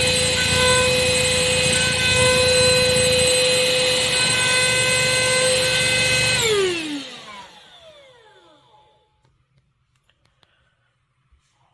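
Shark CH701 Cyclone Pet handheld vacuum's motor running with a steady high whine. It is switched off about six and a half seconds in, and the whine falls in pitch as the motor spins down.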